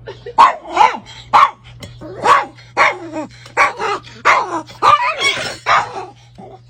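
A dog barking over and over, about two sharp barks a second.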